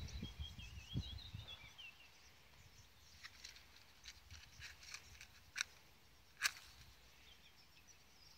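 Matches being struck and held to a sheet of paper to set it alight: a few faint, short, sharp scratches and clicks, spread over several seconds, the two loudest a little past halfway.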